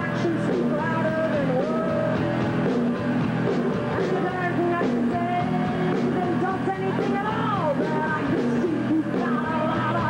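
Live punk rock band playing loud and steady: a woman singing into a microphone over electric guitar and bass.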